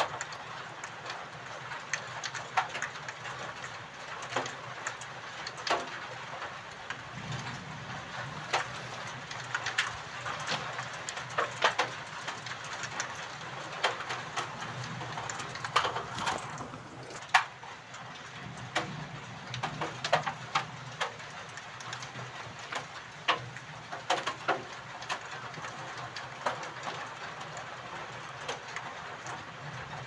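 Steady rain, an even hiss with irregular sharp drips and taps of drops scattered through it.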